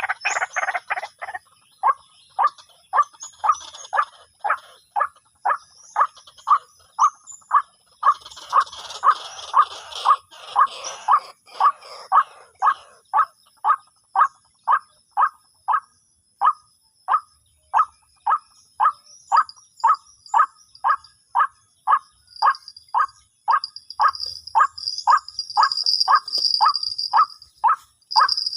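White-breasted waterhen (ruak-ruak) calling, a long run of short, evenly repeated notes at about two a second, denser and rougher for a few seconds in the middle.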